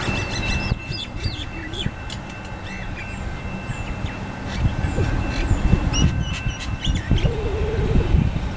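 Small birds chirping in many short calls over the low rumble of a Metro Trains Melbourne suburban electric train approaching, the rumble growing louder in the second half.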